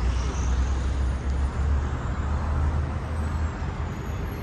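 City street traffic: a motor vehicle's low rumble over steady road noise, easing after about three and a half seconds as it passes.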